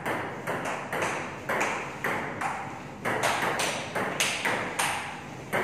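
Table tennis rally: the celluloid ball clicking back and forth off rubber paddles and the table top, a steady run of sharp ticks a few each second, echoing in a hard-walled room.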